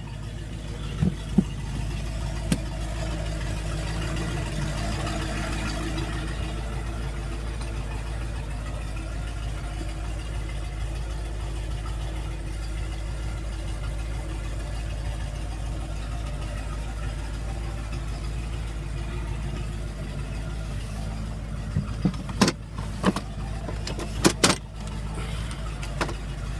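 An engine idling steadily with a low, even hum. A few sharp knocks and clicks come near the end.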